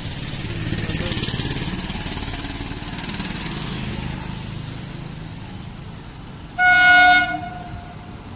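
Low rumble of passing road traffic that fades over the first few seconds, then, about six and a half seconds in, a single loud horn blast of under a second on one steady tone: the horn of an approaching WAP-7 electric locomotive.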